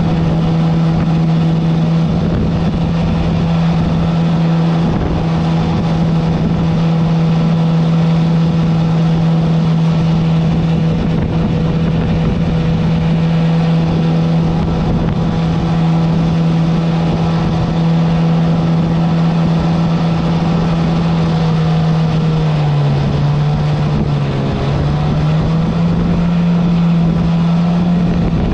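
Mini jet boat's engine running steadily at a cruising speed of about 30 mph. Its pitch drops briefly about two-thirds of the way through, then climbs back.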